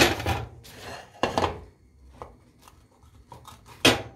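A knife cutting through a pan-fried paratha on a paper plate lined with paper towel: three sharp cutting strokes, one at the start, one about a second in and one near the end, with fainter scrapes between.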